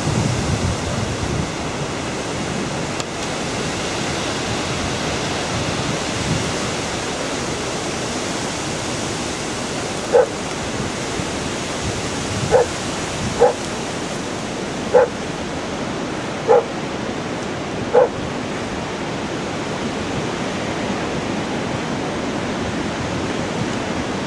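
A dog barking six times, single short barks a second or two apart, over a steady rushing noise.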